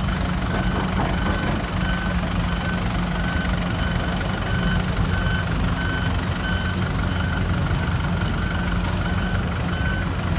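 Heavy diesel engine of earthmoving machinery running steadily, with a high-pitched backup alarm beeping evenly, about one and a half beeps a second.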